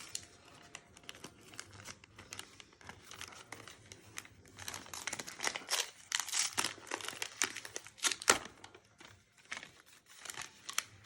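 Paper and packaging being crinkled, handled and torn open in irregular bursts, busiest in the middle, with a few sharp crackles.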